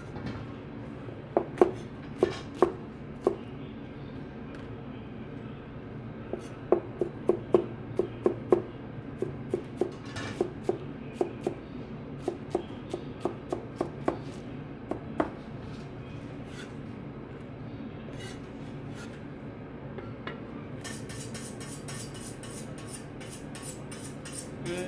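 Chinese cleaver chopping bell peppers on a white cutting board: sharp knocks in short runs, a few a second, over a steady background hum.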